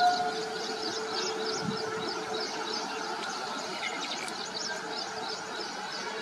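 Steady mechanical drone from standing trains at a station platform, with small birds chirping throughout. A loud, steady horn-like tone fades out right at the start.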